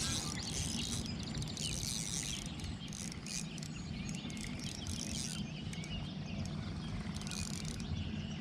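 Birds chirping with many short, high notes over a steady low rumble.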